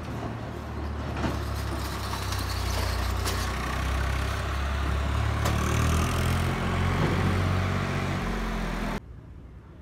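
Road vehicle engine running close by, a steady low rumble with traffic noise over it, cutting off suddenly near the end.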